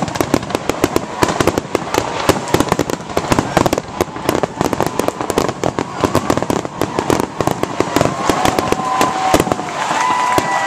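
Aerial fireworks bursting in a dense, continuous barrage of rapid bangs and crackling pops, many a second, loud throughout.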